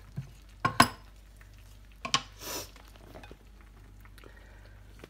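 A few sharp knocks of pots and utensils being handled in a kitchen: the loudest about a second in, another about two seconds in, each followed by a short rustle, with a few faint ticks after.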